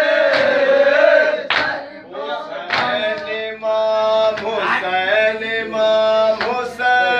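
A crowd of men chanting a Shia mourning lament (nauha) together, moving from loud crowd chanting into long held sung notes about three seconds in. Sharp slaps come about every two seconds: hands striking chests in matam.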